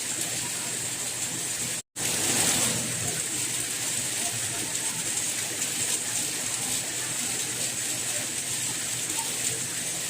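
Steady rain falling, an even hiss with no pauses in the downpour. About two seconds in it cuts out to silence for a fraction of a second, then resumes a little louder for a moment.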